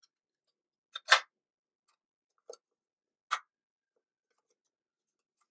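Sharp clicks and clacks of small airsoft rifle parts being handled and fitted by hand. There is a loud double click about a second in, two quieter clicks over the next two seconds, then a few faint ticks.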